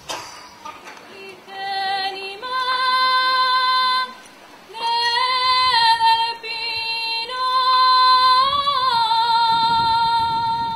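A woman's solo voice singing a slow melody in a few long, high held notes, the last one wavering with vibrato.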